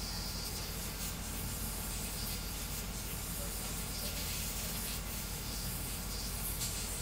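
3D printer running a fast print: a steady hiss of cooling fans with a faint whine from the motors and small swells as the print head changes direction.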